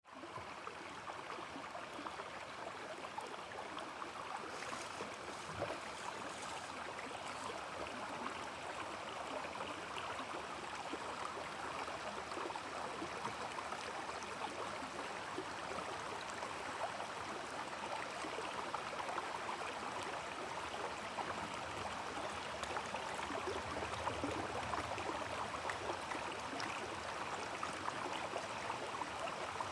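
Small stream running over rocks: a steady babble of flowing water with no pause.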